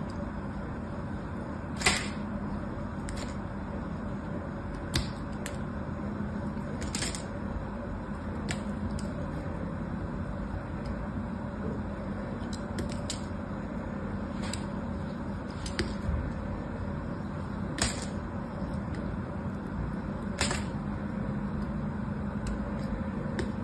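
A metal blade shaving long curls off a bar of soap: a steady soft scraping broken by scattered sharp clicks.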